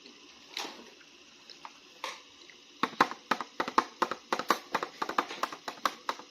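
Plastic toy packaging being handled and opened: a few separate rustles, then from about three seconds in a quick, irregular run of sharp crinkles and clicks.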